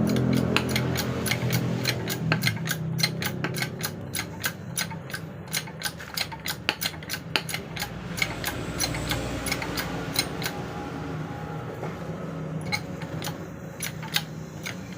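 A car AC hose crimping press worked by hand to press a bearing onto an indoor AC fan motor, giving a run of sharp metallic clicks several a second that thin out near the end.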